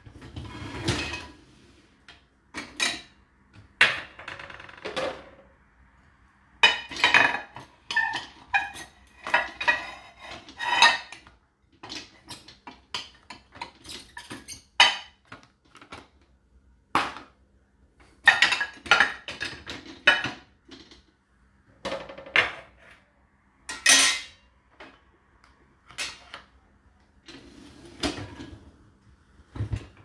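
Crockery and plastic bottles clinking and knocking together in the wire racks of a Whirlpool WFO3P33DLXUK dishwasher as the racks are slid and the dishes handled. The clatters come in irregular clusters, with the loudest bunches about a quarter of the way in, just past the middle and about four-fifths of the way through.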